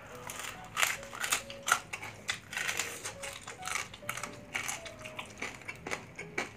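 Crispy deep-fried pork belly (bagnet) crackling being bitten and chewed close to the microphone: many sharp, irregular crunches and crackles.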